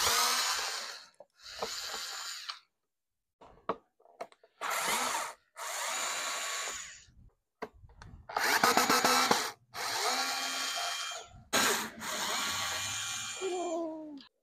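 Cordless electric screwdriver running in repeated short bursts, about eight of them, as it backs screws out of a motorcycle's plastic body panels.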